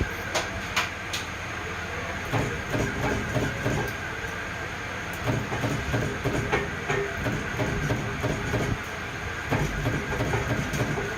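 Steady machine running noise with scattered sharp clicks and knocks, irregularly spaced.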